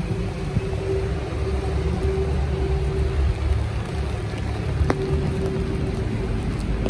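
Rainy city street ambience: a steady low rumble of traffic on a wet road.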